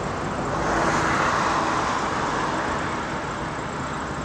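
Road traffic noise from a busy multi-lane city road packed with cars, a steady rush that swells louder about a second in and then eases back.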